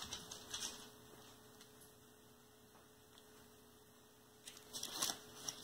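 Faint crinkling and rustling of small ration packets being handled. It dies away after the first second and picks up again about four and a half seconds in, over a faint steady hum.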